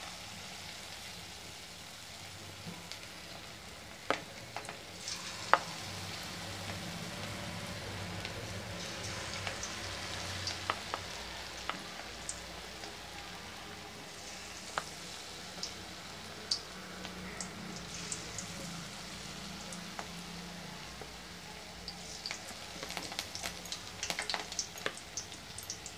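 Batter-coated ivy gourd (kovakkai) pieces deep-frying in hot oil: a steady sizzle with scattered sharp pops, which come thicker near the end.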